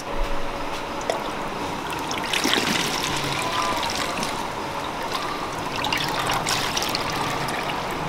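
Milk poured from a plastic jug through a plastic funnel into a plastic bottle, trickling steadily as the bottle fills.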